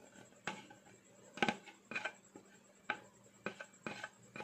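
A series of sharp clinks and knocks, about eight over four seconds, of the electric meat grinder's container and blade parts being handled after grinding pork.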